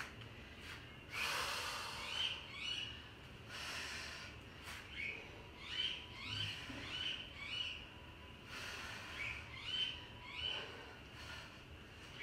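Hard breathing from a person doing kettlebell goblet squats, with several long breaths out. A high chirping call, mostly two short falling notes at a time, repeats every few seconds.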